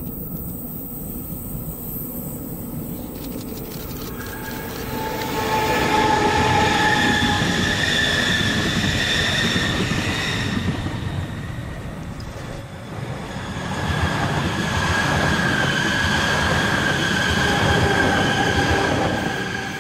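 Rhaetian Railway electric multiple unit passing close by, its rail and wheel noise swelling about five seconds in with steady high whining tones over it. The sound dips briefly around the middle, swells again with the whine, and starts to fade near the end.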